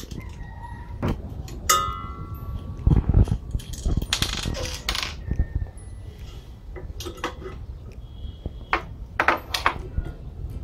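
Hands handling plastic and metal parts: irregular clicks, knocks and a ringing metal clink as a plastic spot-welder pen is fitted onto its metal mounting bracket, with a brief rustle partway through.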